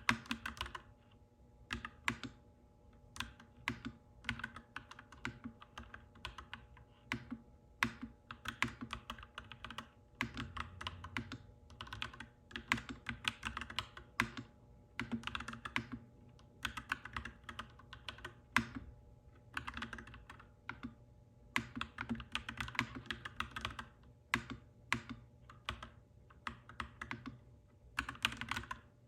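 Clacky mechanical keyboard typing, in quick runs of keystrokes broken by short pauses, over a faint steady hum.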